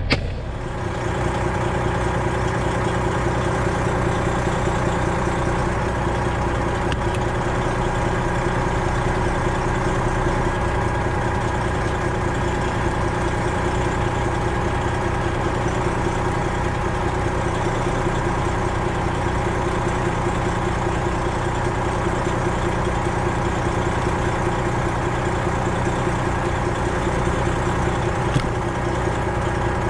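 Detroit Diesel 12.7-litre Series 60 engine of a Freightliner Classic XL semi truck idling at a steady speed. There is a single short click near the end.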